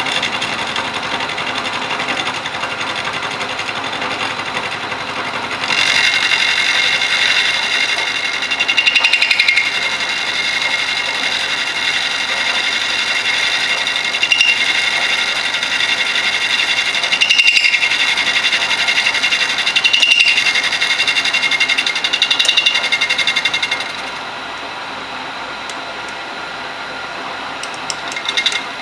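Milling machine running, its end mill cutting the end of an aluminium channel square. About six seconds in the cut gets louder, with a high ringing whine and a few brief squeals, and after about 24 s it eases back to the spindle running more quietly.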